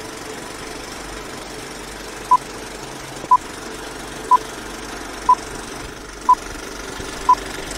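Film-leader countdown sound effect: a steady old film projector rattling and hissing, with a short beep once a second, six beeps starting a little over two seconds in.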